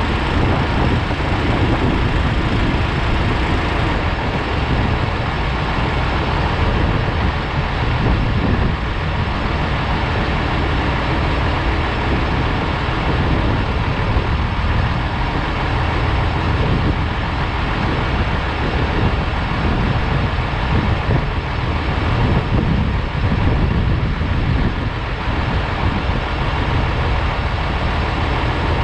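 Tractor engine running steadily under load, a constant low drone with even noise across the range.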